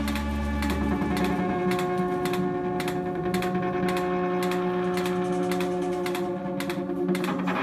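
Live electronic sound performance: several steady held tones at different pitches layered over a regular run of sharp clicks. A low hum drops out about a second in, and the held tones shift near the end.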